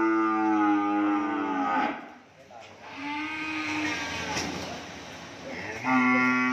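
Cattle mooing: a long, drawn-out moo that tails off just before two seconds in, a shorter, softer one around three seconds in, and another loud moo starting near the end.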